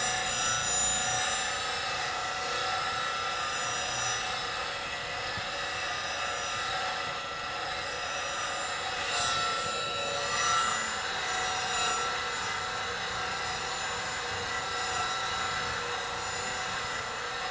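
Bench grinder with CBN wheels running, a steady whine with many fixed tones, as the steel wing of a bowl gouge is ground on the 80-grit wheel.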